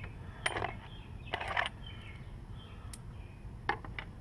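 Two brief scraping, rustling noises and a few sharp light clicks of hand work on a lawn mower's underside, over faint bird chirps.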